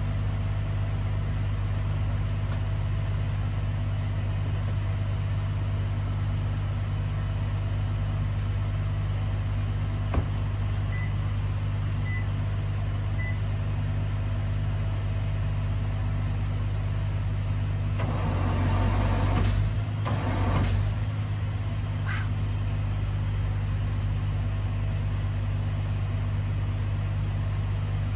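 Car engine idling: a steady low hum. A single sharp click comes about ten seconds in, and a louder rush of noise lasts a few seconds near the two-thirds mark.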